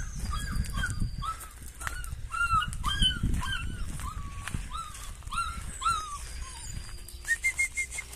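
Small puppy crying: a run of short, high whimpering yelps, about two a second, that stops about six seconds in.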